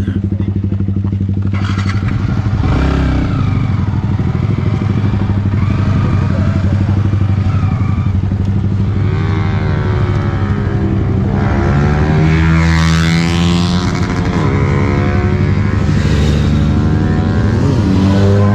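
Race motorcycle engine running on a test ride. Its pitch dips about halfway through, then climbs again as it picks up speed, and rises once more near the end.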